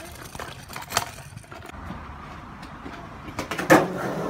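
Skateboard wheels rolling on concrete with a low rumble, and a loud sharp clack of the board near the end.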